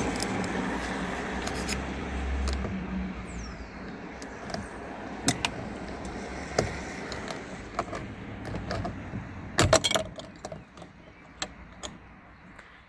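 Scattered light clicks and knocks of small metal parts and tools being handled at a car door, with a cluster of sharper knocks about ten seconds in. A low steady rumble under the first couple of seconds fades away.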